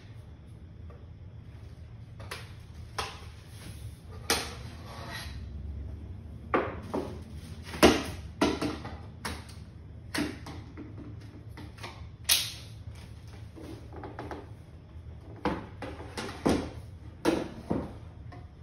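Stand-up paddle board paddle being assembled by hand: about a dozen sharp, irregularly spaced clicks and knocks as its shaft sections are handled, slid together and clicked into place.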